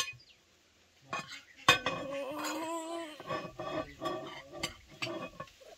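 Metal spoons clinking and scraping against porcelain plates as plov rice is dished out and eaten: a string of sharp clinks and scrapes.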